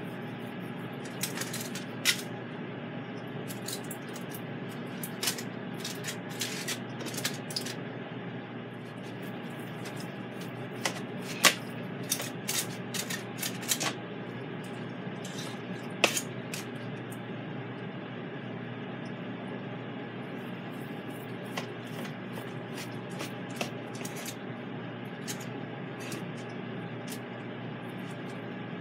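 Metal fork clicking and scraping against aluminum foil and the plate beneath as cooked pork tenderloin is pulled apart, in irregular clusters of sharp taps, busiest in the first half and sparser later, over a steady background hum.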